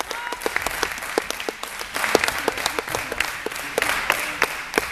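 Spectators clapping: many separate sharp claps in an uneven patter over a steady hiss of crowd noise.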